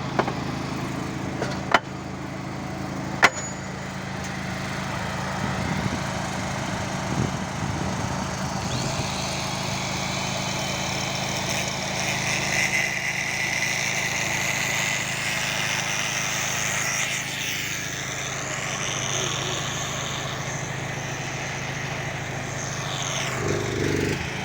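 Engine idling steadily, with three sharp knocks in the first few seconds and a hiss that rises for several seconds in the middle.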